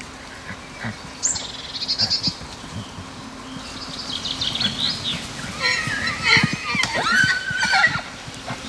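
Horses squealing: a series of high-pitched cries, loudest and most frequent in the second half, with scattered low thuds.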